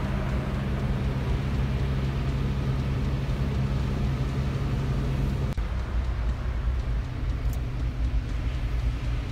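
Jeep Wrangler driving on beach sand, heard from inside the cab: steady engine hum with tyre and wind noise. A click comes a little past halfway, and after it the engine hum drops away.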